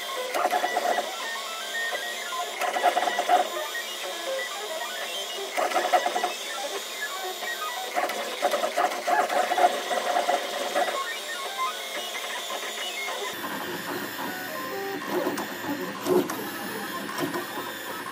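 Desktop 3D printer running, its stepper motors whirring in short runs that change pitch as the print head moves back and forth. About thirteen seconds in the sound changes to a lower, rougher whir.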